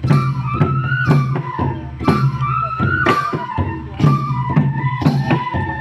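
Bodo traditional dance music: a gliding flute melody over a steady drum beat, with sharp cymbal strokes about once a second.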